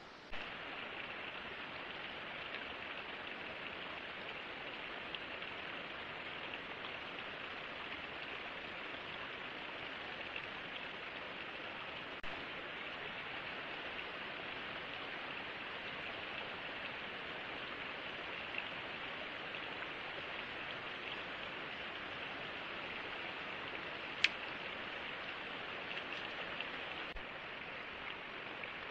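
A steady, even hiss of water noise, with a few faint ticks and one sharp click late on.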